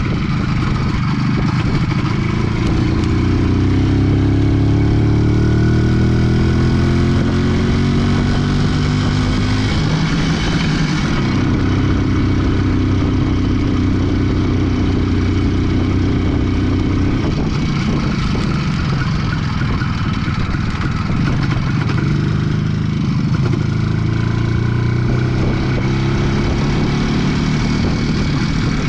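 IZh Planeta 4 motorcycle's single-cylinder two-stroke engine under way. Its pitch climbs steadily through a gear for several seconds, drops at a gear change about ten seconds in, then holds steady, and rises again in the last few seconds.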